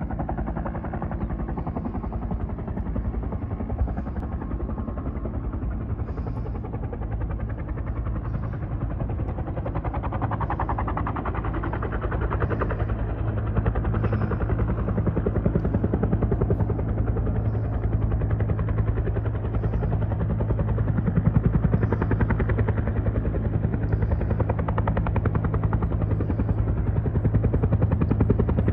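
Fire department helicopter's rotor, a steady rapid chop over a low engine hum, growing louder about halfway through.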